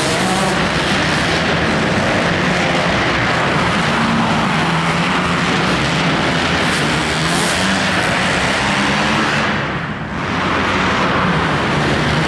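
Several motocross bikes' engines running and revving on the track, a dense, loud engine noise whose pitch rises and falls as the riders throttle up and off. It dips briefly about ten seconds in.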